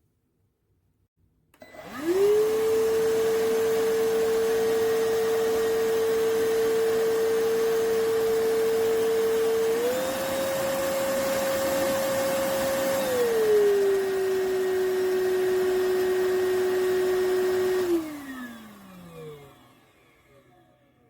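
iwoly C150 cordless stick vacuum motor switched on, whining up to speed and running steadily. It steps up to a higher-pitched power setting partway through, then drops to a lower setting. Near the end it is switched off and winds down with a falling pitch.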